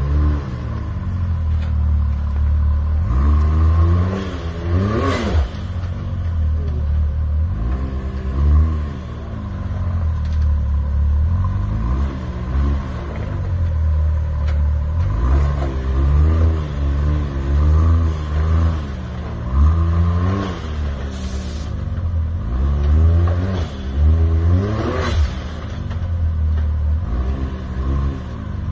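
Can-Am Maverick X3 X RR's turbocharged three-cylinder Rotax engine revving up and easing off again and again under load as the side-by-side crawls up a steep rock ledge, over a deep rumble. A few short sharp noises stand out, twice most clearly.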